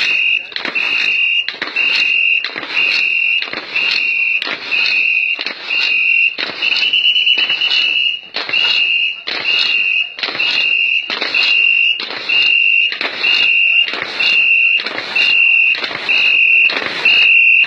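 A whistle blown in short, even blasts a little more than once a second, pacing a boat-racing crew's paddle strokes, with a short rush of noise on each beat. One blast about seven seconds in is longer and trilling.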